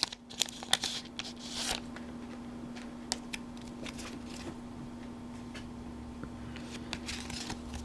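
A Pokemon booster pack is torn open and its cards are handled: crinkling and rustling for the first two seconds or so. After that come a few soft clicks over a steady low hum.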